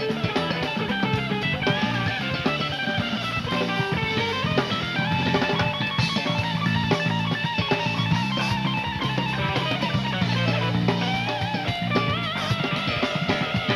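Jazz-fusion trio playing live: electric guitar playing fast lead lines over electric bass and drum kit, with wavering, bent notes near the end.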